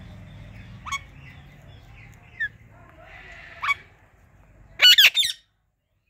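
Indian ringneck parakeets calling: short rising chirps about a second in and again about three and a half seconds in, then a loud burst of three or four shrill squawks near the end.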